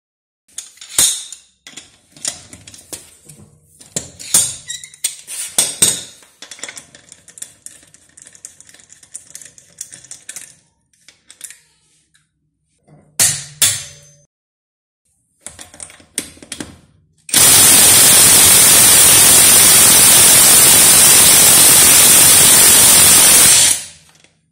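Metal clicks and clanks of a hand wrench working a car wheel bolt loose, then, about seventeen seconds in, a Juemel cordless impact wrench hammering continuously for about six seconds as it undoes a wheel bolt torqued to 120 Nm, stopping abruptly.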